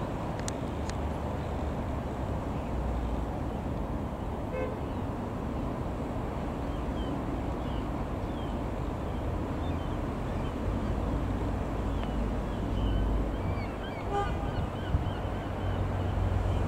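Piper PA-28-161 Cherokee Warrior II's four-cylinder Lycoming piston engine droning steadily as the light aircraft flies overhead, growing a little louder toward the end.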